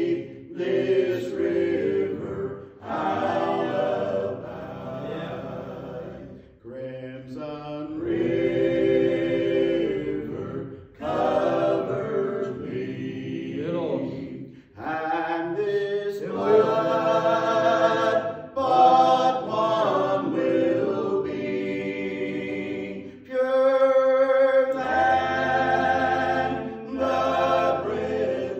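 Gospel quartet singing a slow hymn in close vocal harmony. The phrases are long and held, with short breaks for breath between them.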